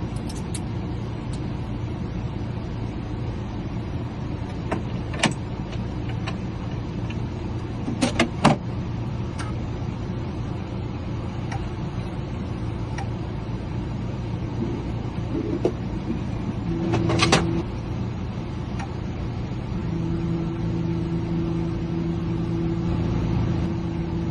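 A steady low mechanical hum with a few sharp clicks. A small electric motor whines briefly about two-thirds of the way through, then again for the last four seconds.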